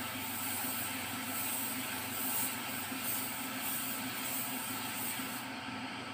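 Compressed-air paint spray gun hissing as it sprays along a bumper, the hiss swelling and easing with each pass, then cutting off about five and a half seconds in when the trigger is released.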